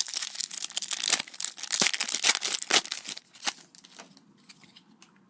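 Foil wrapper of a Panini Prizm trading-card pack crinkling and being torn open for about three seconds, then a few light clicks of handling before it goes quiet.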